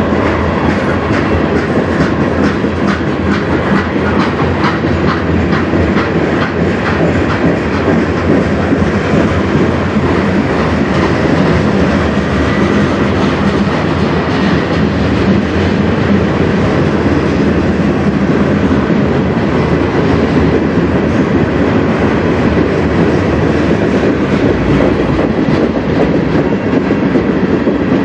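Freight train's tank cars and covered hoppers rolling past, steel wheels clicking over the rail joints in a steady clatter.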